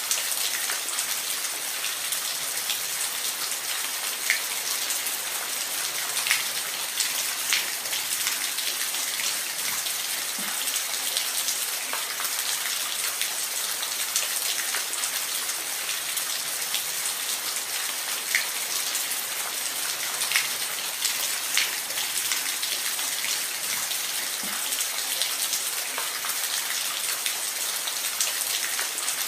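Steady rain falling, an even hiss with close drops ticking sharply now and then.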